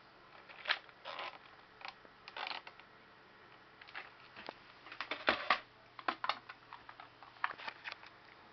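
Handling noise from a plastic toy RC truck and its wired remote: irregular clicks, knocks and short rustles as the pieces are picked up and turned over, with no motor running.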